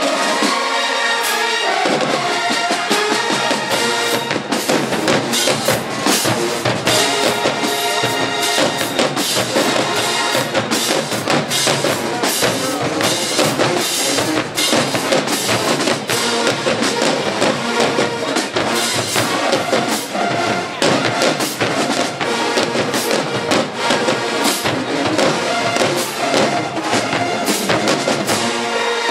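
HBCU marching band playing in the stands: a drumline of bass drums and snares pounding a steady beat under a full horn section.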